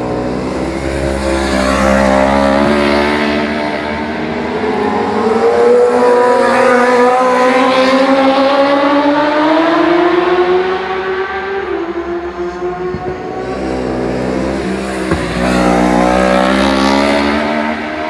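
Race motorcycle engines at high revs passing at racing speed. The first bike's pitch climbs for about ten seconds and falls away as it goes by, and a second bike rises loud again a few seconds before the end.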